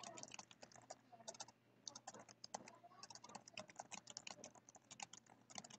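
Faint computer keyboard typing: a run of quick, irregular keystrokes with brief pauses.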